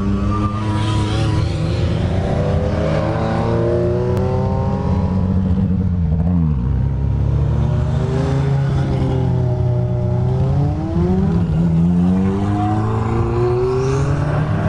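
Group B rally cars, a Lancia Delta S4 and then a Peugeot 205 T16, driving past at low speed one after another, their engines revving up and down with the pitch rising and falling as they pass.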